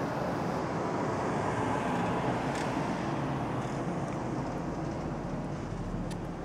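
Helicopter overhead: a steady drone of rotor and engine noise, easing off a little after the middle.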